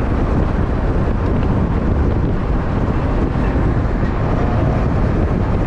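Steady, loud driving noise inside the cab of a 1st-generation Dodge Cummins pickup on the move: the Cummins diesel's low drone mixed with road and wind noise, loud enough to drown out speech.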